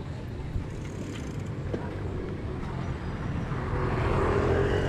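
Steady low rumble of wind and road noise from a bicycle riding along a paved road, growing louder a little past the middle.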